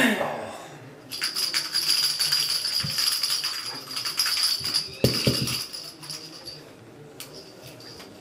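Purple plastic rattle-ball dog toy being shaken and rolled, jingling for about four seconds, with a couple of knocks about five seconds in as it lands.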